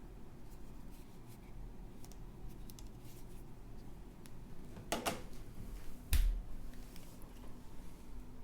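Computer keyboard and mouse being handled on a desk: scattered light plastic clicks, a sharper click about five seconds in and a dull thump just after six seconds, as if something is set down.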